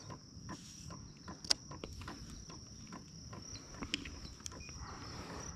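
Steady, faint, high-pitched drone of insects, with scattered small clicks and knocks; the sharpest click comes about a second and a half in.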